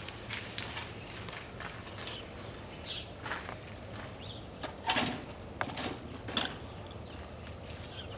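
Faint outdoor ambience with a few short, high bird chirps, followed later by several sharp clicks or rustles.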